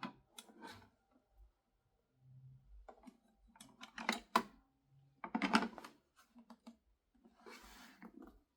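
Faint clicks, knocks and short rustles of something being handled, scattered irregularly with a louder cluster in the middle.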